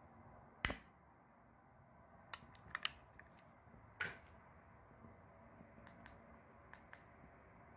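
Sharp clicks of a long-nosed butane utility lighter being worked to light an aluminium-can alcohol stove. A single loud click comes about a second in, then a quick cluster around three seconds and another click at four, followed by a few fainter ticks.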